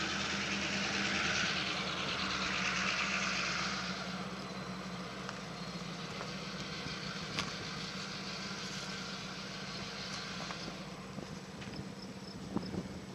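Steady engine hum with a hiss over it that eases off about four seconds in.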